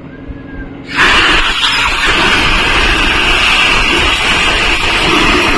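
Compressed air hissing from a blow gun: a loud, steady hiss that starts suddenly about a second in.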